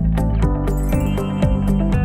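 Background music with a steady beat and sustained notes.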